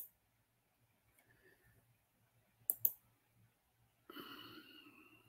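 Computer mouse clicks: a single click at the start and a quick double-click about three seconds in. A short murmured voice sound follows near the end.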